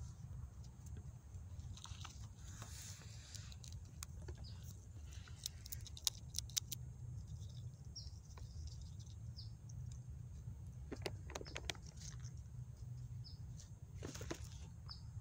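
Ground squirrel eating a shelled peanut: scattered crisp clicks of its teeth crunching the nut, loudest in a short run about six seconds in and again near eleven and fourteen seconds, over a steady low rumble.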